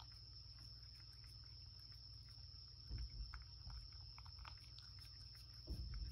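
A cat eating from a ceramic bowl: faint small clicks of licking and chewing, with two low thumps, about three seconds in and near the end. A steady high-pitched whine runs underneath.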